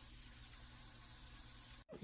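Faint, steady hiss of water running from a hand shower, close to silence. It cuts off abruptly just before the end.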